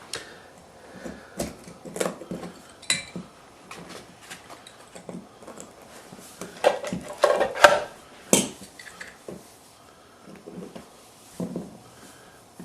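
Scattered clicks, knocks and light clinks of small hard objects being handled and set down, with a busier flurry of them in the middle.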